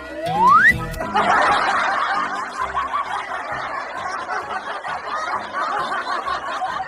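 A short rising cartoon whistle sound effect, then crowd laughter from a laugh track starting about a second in and going on steadily, over background music.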